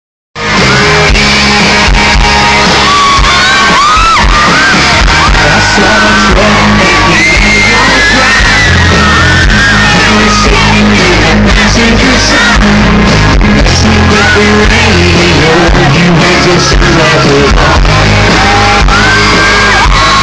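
Live country band playing loud through a concert sound system, with a crowd screaming and whooping over it.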